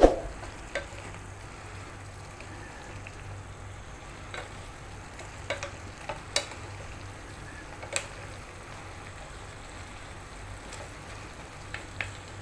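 String beans and shrimp cooking in a non-stick pan with a steady sizzle, tossed with two wooden spatulas that knock and scrape against the pan: a sharp knock right at the start, then lighter taps every second or two.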